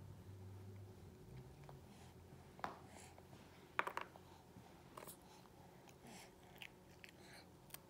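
Quiet room with a few soft clicks and taps, the loudest about four seconds in, as a baby handles puff snacks on a plastic high-chair tray and chews.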